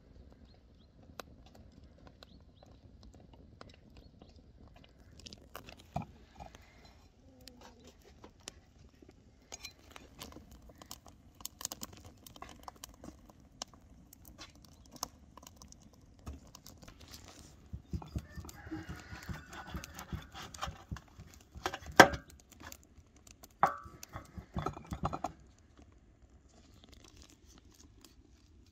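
Wood fire crackling in a metal brazier, with scattered clicks and small knocks of food preparation at a table. In the second half comes a busier stretch of handling and clattering, with two sharp knocks as the loudest moments.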